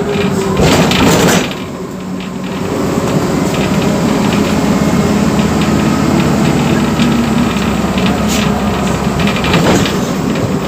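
MWM 4.12 TCE four-cylinder inline turbodiesel engine of a Volksbus 9-150 EOD bus running under way. A short burst of hiss comes about a second in, then the engine note builds again and holds steady. A few clicks and rattles sound near the end.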